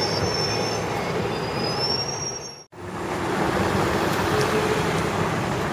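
Aston Martin sports cars pulling away: engine and road noise with a thin high whine rising in pitch before a sudden cut about two and a half seconds in, then a second car's engine and tyre noise.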